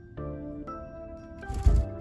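Background music with gentle sustained notes. A short, loud muffled thump comes near the end.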